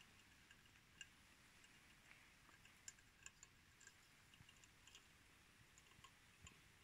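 Near silence broken by faint, irregular small clicks and ticks: mice nibbling and scrabbling at the bait around a wooden snap mousetrap.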